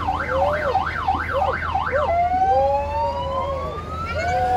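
Electronic siren sounding a rapid up-and-down yelp, about four cycles a second, then switching about two seconds in to a slow rising wail, with a lower wavering tone beneath.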